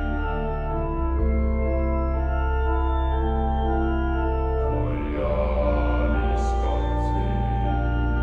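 Background music: slow, sustained keyboard chords, each held for a second or more before shifting to the next.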